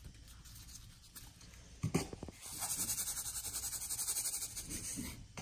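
A container of fine white powder being shaken rapidly to sprinkle it over diced melon in a worm bin: a quick, even, rhythmic hissing rattle of about ten shakes a second, after a sharp knock about two seconds in.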